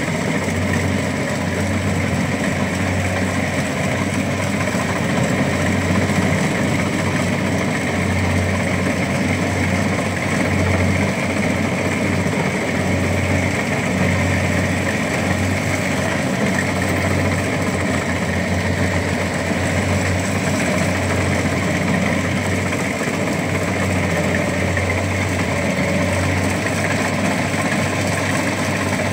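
Rice harvesting machine's engine running steadily, with a low throb that pulses continuously.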